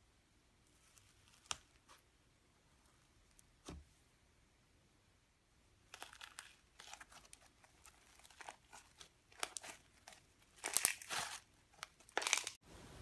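Iceberg slime crackling and crunching as fingers press through its hardened top crust and knead the slime beneath. A few sparse crackles come first, then dense, crunchy crackling starts about halfway through and is loudest near the end, where it cuts off suddenly.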